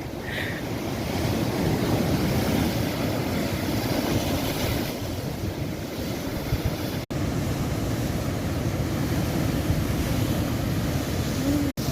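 Strong wind rumbling on the microphone over the steady wash of surf breaking on the shore, cut by two very brief dropouts, one a little after halfway and one near the end.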